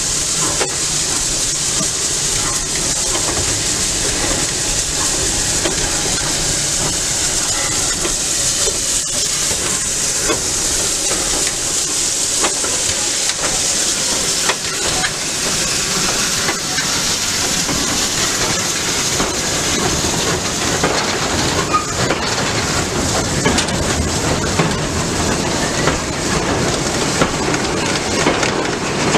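Steam locomotive J549, a Victorian Railways J class 2-8-0, hissing steam as it hauls a train of goods wagons slowly past. The hiss is strongest in the first half; toward the end the wagon wheels clatter over the rail joints with a steady rumble.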